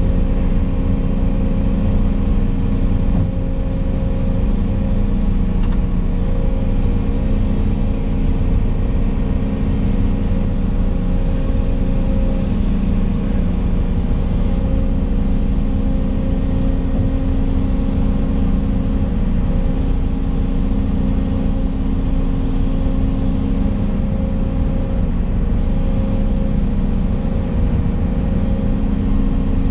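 Volvo EC220 excavator's six-cylinder diesel engine running steadily at a constant speed, heard from inside the operator's cab.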